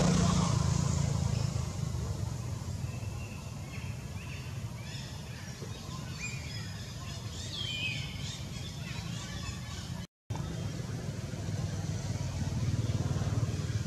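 Outdoor ambience: a steady low rumble like distant traffic, with a few short high chirps in the middle. The sound cuts out for a split second about two-thirds of the way through.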